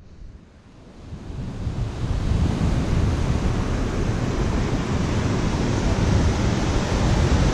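Surf washing over a rocky shore, with wind rumbling on the microphone; the sound fades in over the first second or two and then holds steady.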